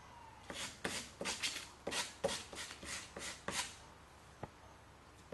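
Sandpaper rubbed by hand over the end of a wooden spoon: a quick run of about a dozen short scratchy strokes, roughly three a second, that stops a little before 4 seconds in. A single small tick follows shortly after.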